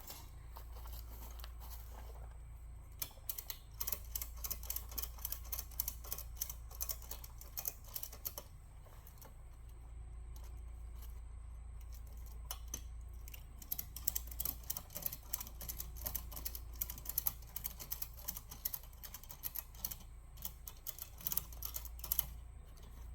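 Nylon zip ties being pulled tight: bursts of rapid ratcheting clicks, with pauses between ties.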